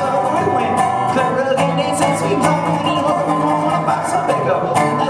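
Resonator guitar strummed in a steady rhythm, with a man singing along at the microphone.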